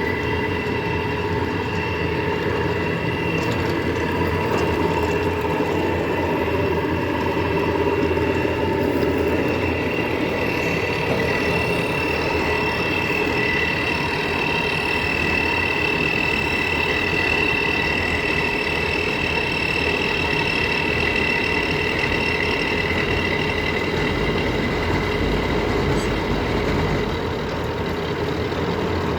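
Lathe running while turning a job: a steady machine hum with a few high, steady whining tones over it.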